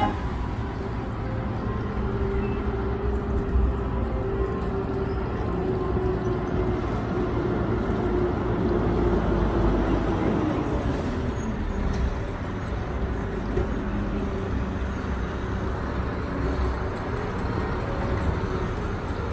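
Street traffic: motor vehicles driving past, with one vehicle's engine note dropping in pitch as it goes by about nine seconds in.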